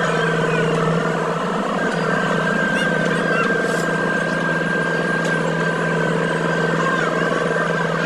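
Asphalt paver running steadily while laying asphalt: a constant engine drone with a thin high whine over it.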